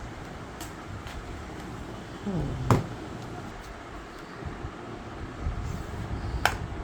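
Plastic clips of a laptop's bottom panel snapping loose as it is pried off with a card: a few sharp clicks, two loud snaps about two and a half seconds in and near the end, the first with a brief falling creak just before it.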